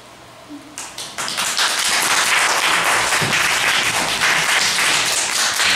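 Applause: a group of children clapping, starting just under a second in and keeping up steadily.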